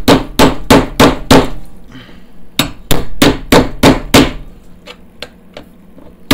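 Hammer blows on a cold chisel driven into the spot-welded seam of a car's steel sill, splitting the drilled-out welds to prise the sill panels apart. Sharp metallic strikes about three a second, in two runs with a short pause near two seconds, getting fainter near the end.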